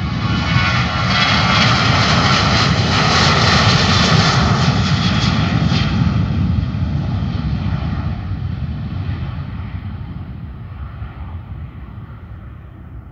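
Boeing 737-800's CFM56 turbofan engines at takeoff thrust: a loud rushing roar with a steady whine over it. It builds to its loudest a few seconds in as the jet runs down the runway, then fades steadily as the airliner lifts off and climbs away.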